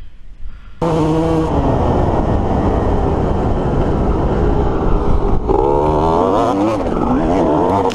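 Dirt bike engine running hard, starting abruptly about a second in. Its pitch wavers up and down over the last few seconds as the rider works the throttle.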